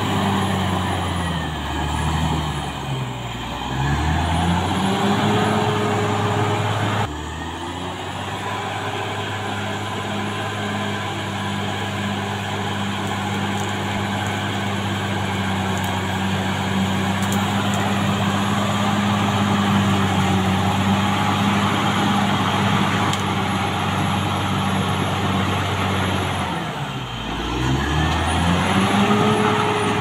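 Caterpillar D6R XL bulldozer's diesel engine running hard, with a high whine above it; twice, once near the start and once near the end, the engine speed sags and picks back up.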